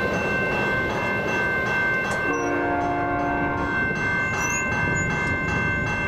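Railroad crossing bell ringing steadily while the last of the passing train's rumble fades in the first second. About two seconds in comes a short blast of about a second and a half from the train's Nathan K5LA five-chime horn.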